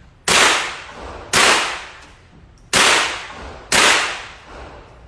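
Four gunshots fired at a shooting range, about a second apart, each cracking sharply and ringing out as it fades.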